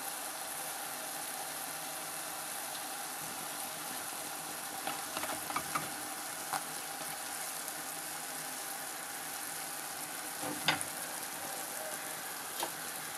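Yum yum dough frying in shallow oil in a cast-iron pot: a steady sizzle, with a few light clicks around the middle and near the end.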